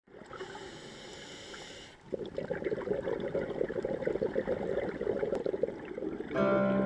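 Underwater gurgling and bubbling water picked up by a camera below the surface, with a steady hiss over the first two seconds. Plucked-string music comes in near the end.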